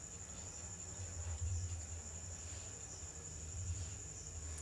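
Crickets trilling steadily as one continuous high-pitched tone, over a low steady hum.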